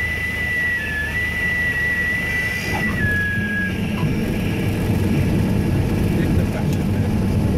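Light aircraft stall warning horn whistling a steady high tone through the landing flare, dropping slightly in pitch near the end before cutting off about four seconds in, over the continuous low drone of the Cessna's piston engine. After touchdown a low rumble of the wheels rolling on the runway rises.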